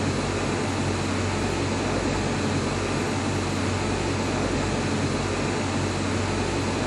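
Lathe running while a Walter solid carbide boring bar cuts C45 steel under 10-bar coolant: a steady hiss of coolant spray over a constant low machine hum.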